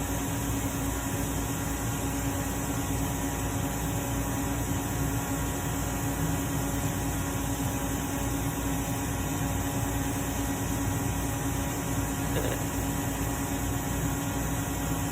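Steady machine hum with one constant low tone that holds at an even level throughout.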